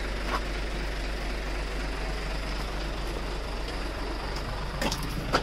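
Bus running with a steady low rumble of engine and road noise.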